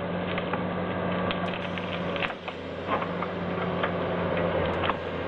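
Heavy machinery's engine running with a steady low hum. Scattered sharp clicks and knocks sound over it.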